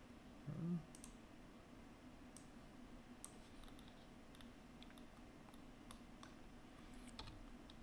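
Near silence with faint scattered clicks of a computer mouse and keyboard, about a dozen spread over several seconds. There is a short low voice sound about half a second in.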